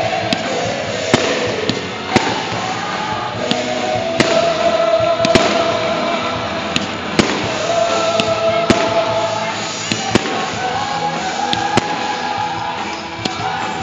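Aerial fireworks bursting in a series of sharp bangs and pops, about one a second at irregular intervals, over music playing in the background.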